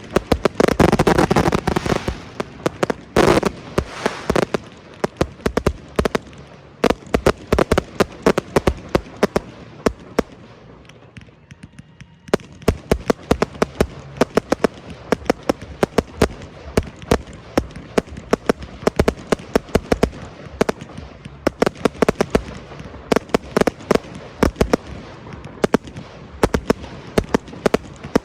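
Fireworks display: a dense barrage of bangs and rapid popping reports, loudest at the start, easing to a brief lull about ten seconds in, then rapid popping picks up again and keeps going.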